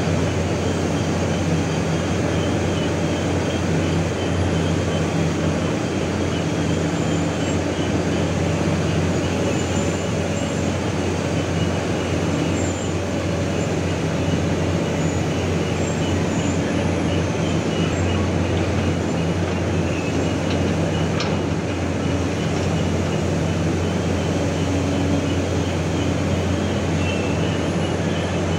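Heavy diesel machinery running steadily: the engine drone of large Hitachi EX1200 excavators on a floating crane working coal in a barge, a continuous low hum.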